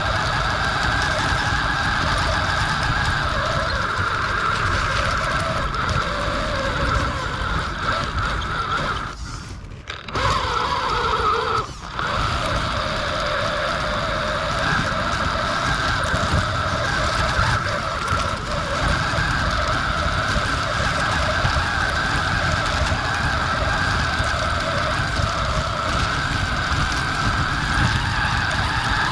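Axial Capra RC crawler's electric motor and gears whining steadily as it drives, the pitch wavering with the throttle. The sound drops away briefly about nine to ten seconds in, with another short dip around twelve seconds, then picks up again.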